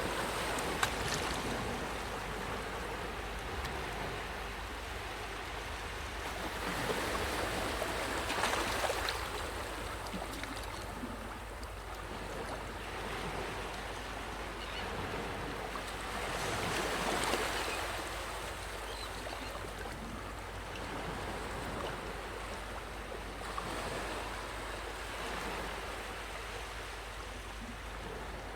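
Sea waves washing onto a sandy beach, the surf hiss swelling and fading about four times, roughly every eight seconds, over a steady low rumble.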